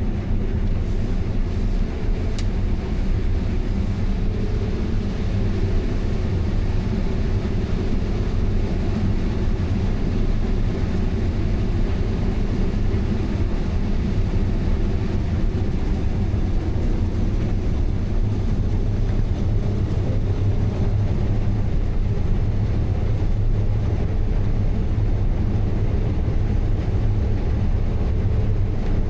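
Combine harvester running steadily under load while harvesting corn, an even low drone.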